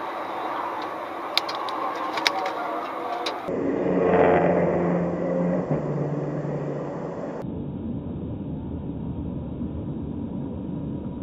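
Car on a highway recorded from inside: steady road and engine noise, with a few sharp clicks about a second and a half and two seconds in, and an engine revving louder around four seconds in. The sound turns suddenly duller twice, at cuts between replays.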